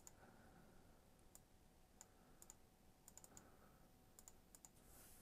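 Faint, scattered clicks of a computer mouse and keyboard keys, a dozen or so over a few seconds, against near-silent room tone.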